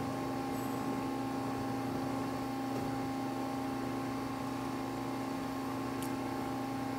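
Steady hum of a powered-up Mazak QT-20N CNC lathe, with several constant tones. The X and Z axis slides are being jogged and add little sound of their own: the axes are quiet.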